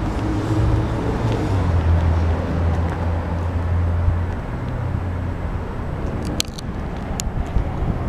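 Steady low hum of a vehicle engine over outdoor background noise, with a few light clicks about six seconds in.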